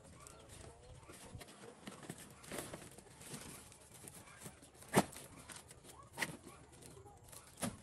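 Plastic tarpaulin rustling and crinkling as it is handled and tied to a steel beam, with a few sharp clicks, the loudest about five seconds in.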